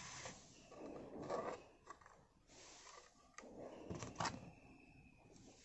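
Faint handling noises of small tools and parts: light scrapes and a few sharp clicks while an antenna wire is fitted to a home-built FM tuner.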